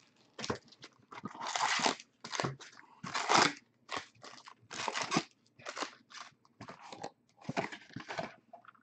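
Wrapped trading-card packs crinkling and rustling as they are lifted out of their cardboard box by hand and stacked, in a string of irregular short crackles.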